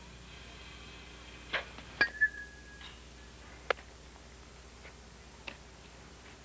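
Softball bat striking a pitched ball about two seconds in, with a short ringing ping. A few other sharp knocks come before and after it.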